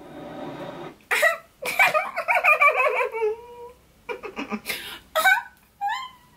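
A woman vocalizing in reaction without clear words. A short steady hum comes first, then a run of high exclamations and laugh-like sounds, and a few short rising calls near the end.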